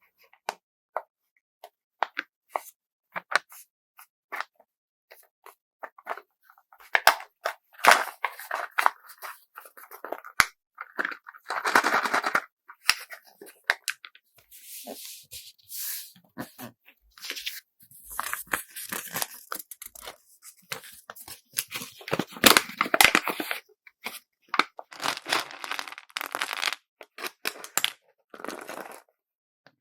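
Close-miked packing sounds: paper or plastic rustling and crinkling in bursts, with scattered small clicks and taps, sparse for the first several seconds and busier from about seven seconds in.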